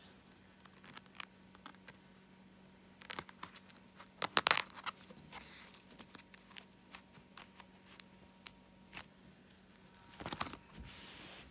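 Plastic binder pocket pages crinkling and rustling as a card binder is handled, in scattered small crackles with louder rustles about four and a half and ten seconds in.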